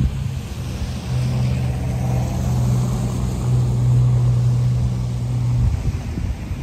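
Street traffic on a snow-covered road: a steady low engine hum that breaks off briefly near the start and stops about six seconds in, with the tyre hiss of a passing vehicle swelling for a couple of seconds.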